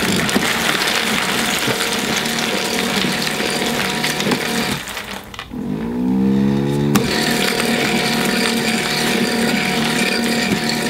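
NEMA 17 stepper motor in a homemade cereal dispenser running steadily, pushing goldfish crackers out of a plastic container. About five seconds in the noise drops away and a rising whine levels off, then the full sound starts again with a click.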